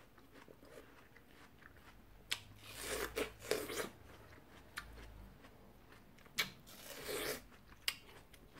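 Crisp, juicy crunching of watermelon flesh bitten off near the rind, with chewing: a few sharp crunches and two short bursts of crackling chewing, one in the middle and one late on.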